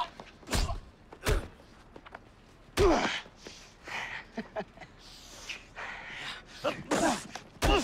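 Several punch impacts in a fist fight, each a sharp hit, with grunts and gasps from the two fighters between them.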